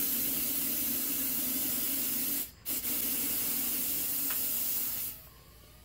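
Compressed air hissing from an air hose in two long, steady blasts, with a short break about two and a half seconds in, cutting off near the end.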